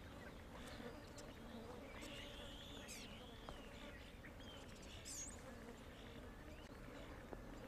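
Faint, steady buzzing of flies drawn to an animal carcass. A few high, rising-and-falling chirps come through about two to three seconds in.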